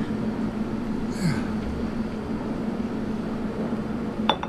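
Café room tone with a steady low hum. Near the end comes a short ringing clink, like a coffee cup set against its saucer.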